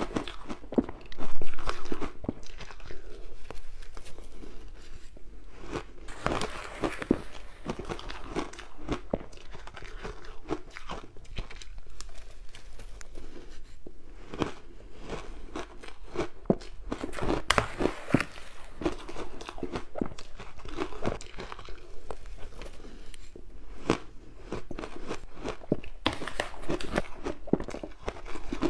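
Mouthfuls of powdery frozen ice being bitten and chewed close to the microphone: dense, irregular crunching and crackling. A loud burst of crunching comes about a second in.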